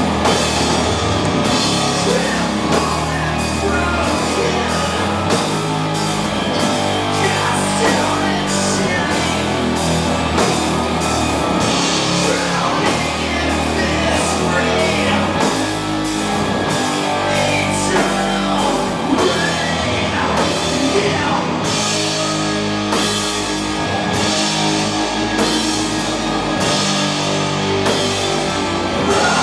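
Doom metal band playing live: heavily distorted guitars and bass over drums, with cymbal hits on a slow, regular beat.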